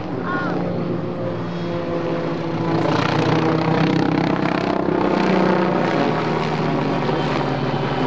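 A formation flypast of two Alpha Jet twin-turbofan trainers and a Zivko Edge 540 propeller aerobatic plane: steady jet and propeller engine noise that grows louder about three seconds in.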